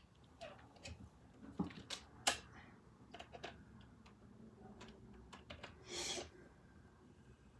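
Scattered light clicks and taps of small plastic parts and tools being handled while a radio-controlled car is taken apart, with two sharper clicks about two seconds in and a brief louder rustle about six seconds in.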